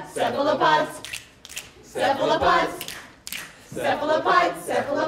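Voices singing a rhyming song about cephalopods without accompaniment, in short sung phrases, with a few sharp claps in the gaps between them.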